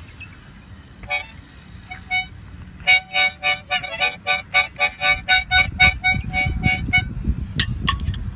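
Harmonica blown by an orangutan: a few single notes, then a rapid run of short chords at about four puffs a second for around four seconds.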